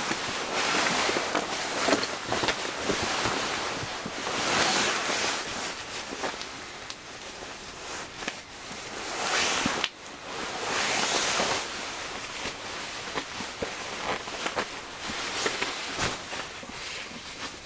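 Sleeping bag rustling in repeated surges as a person shifts and pulls it up around himself on a cot, with small clicks scattered through it.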